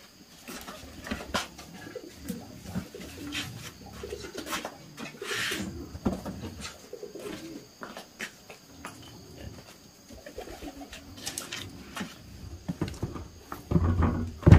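Pumpkins and squashes being picked up and set down on a concrete floor: scattered light knocks and scuffs, then a heavy thud near the end as one is put down on the pile.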